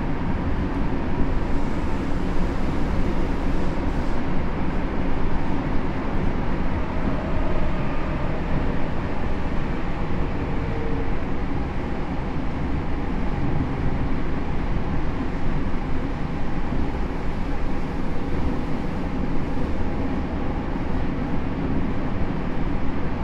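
Tokyo Metro 7000 series commuter train with Mitsubishi IGBT VVVF traction equipment, heard from inside the passenger car while running between stations. There is a steady rumble of wheels on rail, and faint whining tones come and go about a third of the way in.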